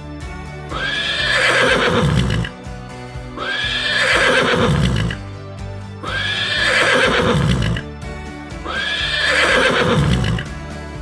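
A horse neighing four times, about every two and a half seconds. Each whinny starts high and falls in pitch, and the four calls are near-identical, a repeated sound effect. Background music plays underneath.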